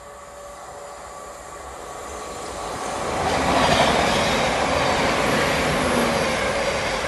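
Electric multiple-unit passenger train approaching and passing at speed: a rush of wheels on rail that grows louder, peaks about three and a half seconds in and stays loud as the carriages go by.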